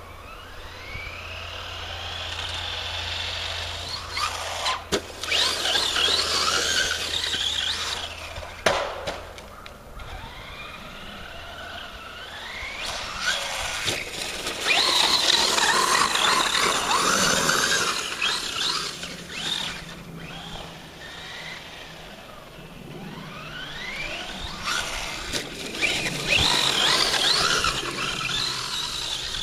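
High-pitched whine of the Traxxas Stampede 4x4 RC truck's brushless motor (Turnigy 3665, 3190 kV) on a 3S LiPo, rising and falling in pitch as the throttle is worked. It comes in three loud runs of revving, with a couple of sharp knocks in the first.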